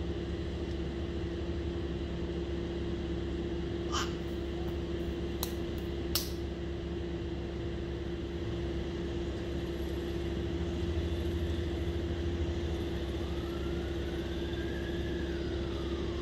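Tow-behind brush chipper running steadily at idle, an even engine hum with no wood being fed. A few sharp clicks or knocks come around four to six seconds in.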